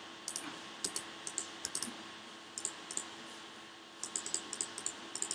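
Computer keyboard and mouse clicking in short, irregular bursts of a few clicks each, over a faint steady hum.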